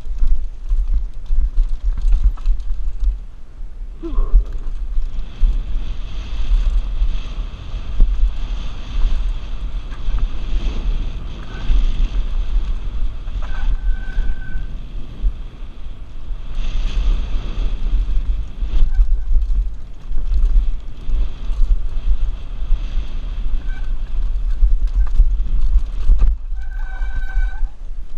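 Heavy wind buffeting on a helmet-mounted camera's microphone, with the rattle and rolling of a Mongoose Pinn'r mountain bike descending a rough trail. Brief high buzzing tones come and go, strongest near the end.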